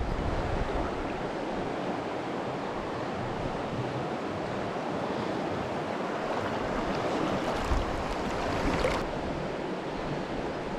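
Steady rushing of a small mountain river's current.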